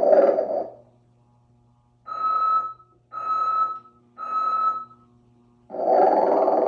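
Telco Motion-ettes Sleeping Santa animated figure playing its built-in snore-and-whistle routine: a long snore trails off just under a second in, then three short whistles at one steady pitch follow in quick succession, and another long snore starts near the end.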